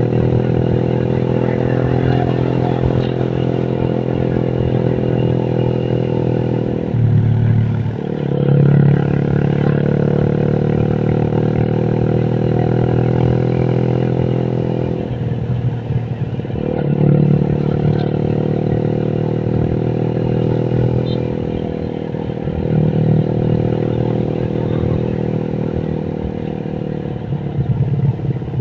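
Motorcycle engine and exhaust running at steady cruising revs while being ridden; the engine note dips and picks up again four times as the throttle is eased and reopened.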